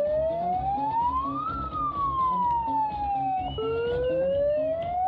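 A siren wailing: its pitch rises slowly, falls back, then drops suddenly about three and a half seconds in and starts rising again. Music with a steady beat plays underneath.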